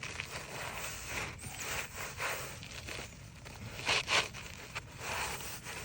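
Asphalt roofing shingles scraping and rustling as they are worked and slid by hand under the course above, with irregular rasping strokes and the two loudest about two-thirds of the way through.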